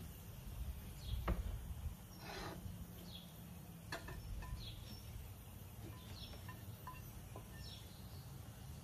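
Outdoor ambience: a low steady rumble with scattered short bird chirps and a few faint small ticks, and one sharp click about a second in.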